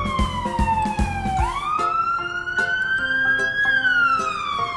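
Wailing emergency siren. Its pitch falls, swoops back up about a second and a half in, climbs slowly and then falls again near the end. Light background music plays beneath it.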